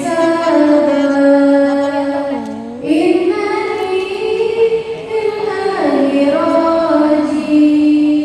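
A woman singing in long, held notes that slide and bend between pitches, with short breaks between phrases.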